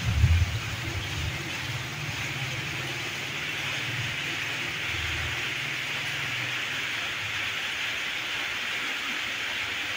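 Steady background hiss, with low rumbling knocks through the first five seconds that then die away.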